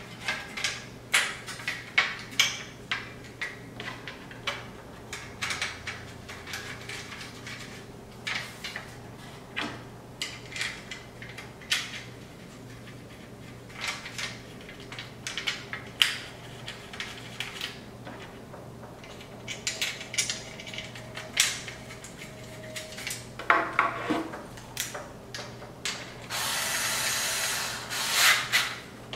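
Scattered clicks and knocks of a carbon fiber trim piece and small screws being handled and fitted together on a workbench. Near the end comes about two seconds of steady rasping as a screw is driven in with a hand screwdriver.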